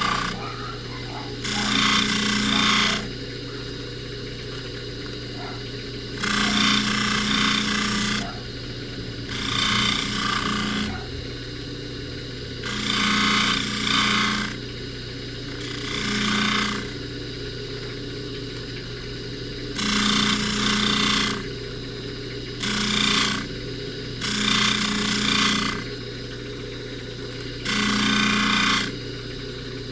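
Bench buffing motor running at low speed with a steady hum. A necklace is pressed against the rouge-charged buffing wheel about nine times, each pass a rasping rub of a second or two.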